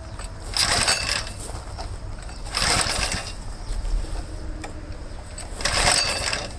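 Small engine cranked by three pulls of its recoil starter rope, each a short whirring rush about two and a half seconds apart, without firing. It turns over with little compression, and its spark plug wire is off, so it cannot fire.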